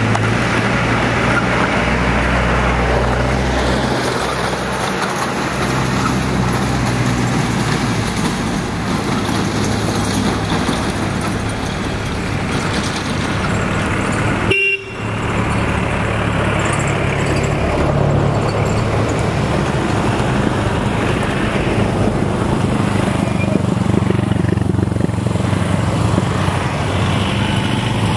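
Steady road traffic noise with vehicle horns, dropping out briefly about halfway through.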